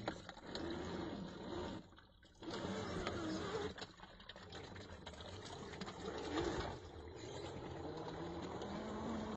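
Electric motor and gears of a scale RC rock crawler whining, rising and falling in pitch with the throttle, as the truck wades through shallow water with light splashing.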